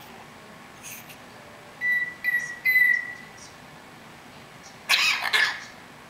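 African grey parrot whistling three short notes at about the same pitch, the last one the longest. About five seconds in comes a short noisy sound in two parts, the loudest thing here.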